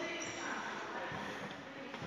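Indistinct voices echoing in a large sports hall, with a basketball bouncing on the court floor a couple of times.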